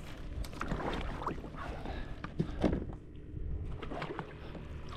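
Irregular small knocks, clunks and water splashes from a kayak and its gear in shallow water, over a steady low wind rumble on the microphone.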